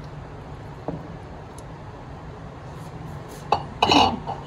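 A ceramic bowl and silicone spatula clinking and knocking against a frying pan as cubed raw chicken is scraped out of the bowl into the pan. A faint click comes about a second in, then a knock and a louder clatter with a brief ring near the end, over a low steady hum.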